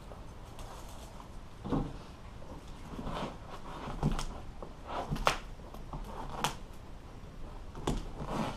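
Irregular clicks and knocks of staples being pried out of a boat-seat headrest's wooden base with a staple puller, about one every second or so.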